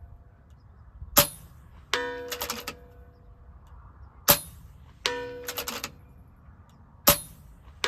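FX Impact M3 PCP air rifle fired three times, about three seconds apart. Each sharp shot is followed under a second later by the faint, ringing ding of the pellet striking a painted steel target at 110 yards.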